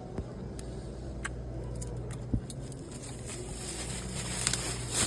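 Scattered light clinks and clicks of coins and small items being handled over a steady low hum, with one sharper knock a little over two seconds in.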